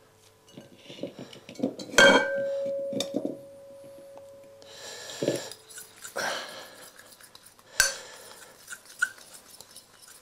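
A metal utensil clinking and scraping in a glass mixing bowl during stirring. A sharp strike about two seconds in leaves the bowl ringing for nearly three seconds. A second, shorter ring, more scraping and a sharp click come later.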